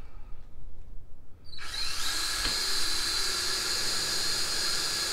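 Cordless drill starting up about one and a half seconds in and spinning steadily with a high, even whine as it bores a pilot hole through the yurt's wooden lattice wall.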